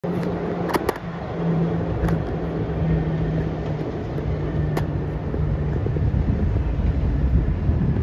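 Steady low vehicle rumble with a held low hum, broken by a few sharp clicks; an electric subway train is approaching from a distance.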